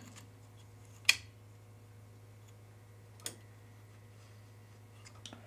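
Small sharp clicks as a resistor lead and parts are handled on a multimeter's circuit board: one about a second in and a softer one about two seconds later, with a few faint ticks near the end, over a faint steady low hum.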